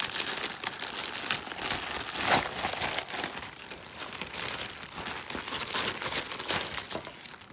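Clear plastic packaging crinkling and rustling as hands pull it open and unwrap it, with a sharper, louder crackle a little over two seconds in.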